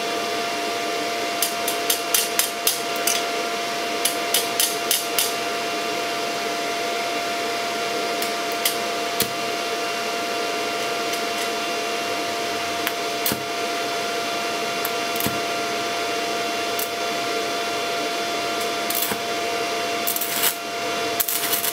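Inverter stick welder running with a steady whir and a constant whine, while an E6013 electrode is tapped and scratched against a steel bar to strike an arc, giving irregular clusters of sharp clicks and crackles, densest near the start and the end.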